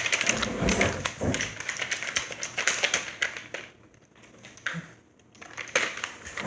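Objects being handled close to the microphone: a quick run of clicks and taps for the first few seconds, then a few single taps.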